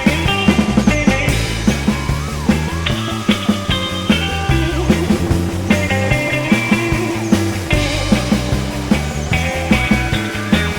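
Rock music with a steady drum beat and gliding, sustained lead lines.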